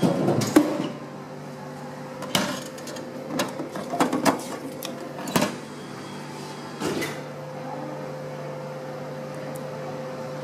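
Glico Seventeen Ice vending machine humming steadily while a run of clunks and clicks sounds over the first seven seconds, the loudest in the first second, as a cone is dispensed and taken out through the flap of the retrieval door.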